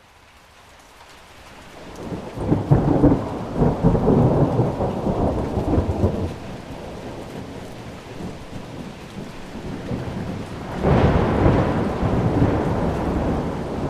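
Heavy rain with rolling thunder, fading in at the start. A long low rumble of thunder swells about two seconds in and dies away after several seconds, and a second rumble breaks in near the end over the steady rain.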